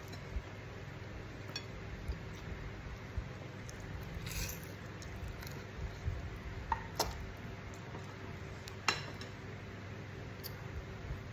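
Close-up eating sounds of a man eating fried fish with his hands: quiet chewing and sucking at the fish, with a few sharp clicks against the plate and a short hiss about four seconds in.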